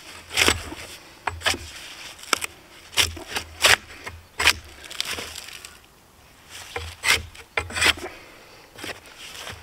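A debarking tool scraping bark off a robinia log in about ten short, sharp strokes at an uneven pace, with a pause about halfway through.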